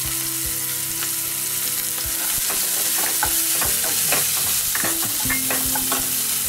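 Freshly added chopped onions sizzling in hot oil in a nonstick pan, with a wooden spatula tapping and scraping as they are stirred; the taps come thick from about two and a half seconds in.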